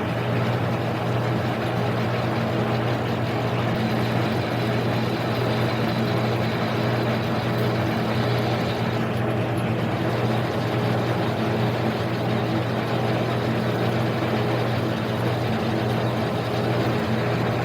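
Harbor Freight mini lathe driven by a 1 horsepower AC motor through a mechanical variable-speed drive, running steadily with a constant hum while it takes a facing cut of about 1/8 inch in aluminum.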